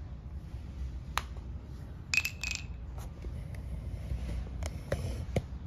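Wooden and plastic toy construction pieces clicking and knocking together as the assembled toy is handled and set down on a hard floor. Scattered sharp clicks, loudest about two seconds in with a brief ringing clink, and a few more near the end.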